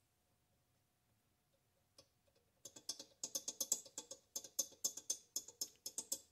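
Kohler Magnum M18 valve stem knocking in its guide as it is rocked back and forth by hand: a quick run of light metallic clicks, about five a second, starting about two and a half seconds in. The stem has a lot of slop in it, the sign of a worn valve guide.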